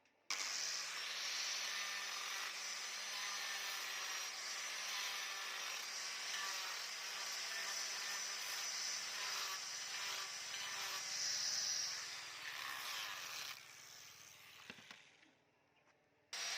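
Electric grinder running on steel, a steady motor whine under a harsh grinding hiss. Near the end the motor winds down with a falling pitch, and the grinding starts up again at the very end.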